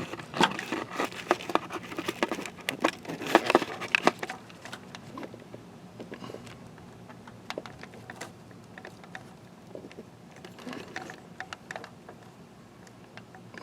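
Hands working in an engine bay, with scattered clicks, taps and rustling of metal and plastic parts as the new transmission pressure switch is worked down into place. Busy for the first few seconds, then only sparse faint clicks.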